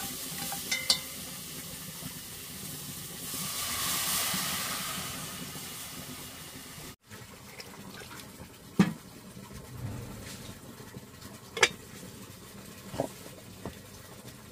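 Liquid in an aluminium cooking pot over a wood fire, a watery hiss that swells for a few seconds, like water poured or stirred in. After a cut, a few sharp metal clinks a second or two apart as the pot, its lid and the utensils are handled.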